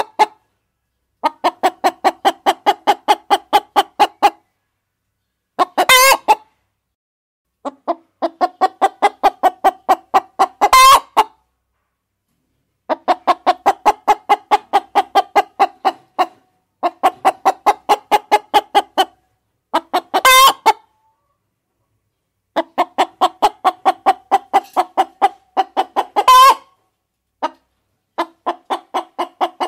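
Hen cackling: runs of rapid clucks, several a second, most runs ending in one loud, higher squawk. The pattern repeats about five times with silent gaps between.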